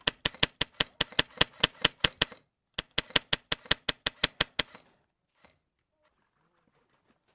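Airsoft gun firing close to the microphone: two strings of rapid sharp shots at about six a second, the second starting after a short pause just under three seconds in.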